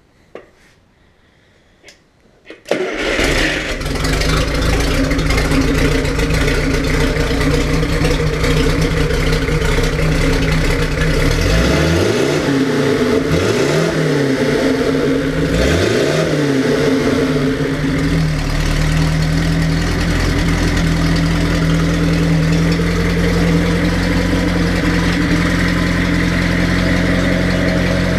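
1931 Stutz DV32 straight-eight engine on its test run: after a few small clicks it fires up about three seconds in and keeps running. Its speed rises and falls a few times in the middle, then it settles into a steady idle.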